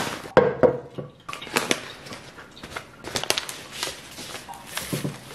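Paper wrapping of a flower bouquet crinkling and rustling in irregular crackles as it is handled and pulled away from the stems.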